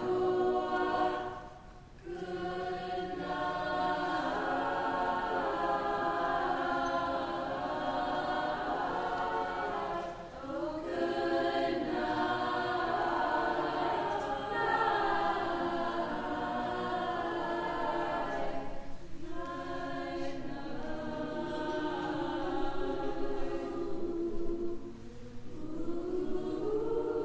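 A choir singing in long, sustained phrases of held chords, with brief breaks between phrases.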